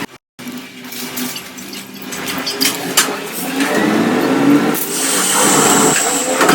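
A small machine buzzing steadily, with scattered clicks and rattles, after a brief cut to silence right at the start.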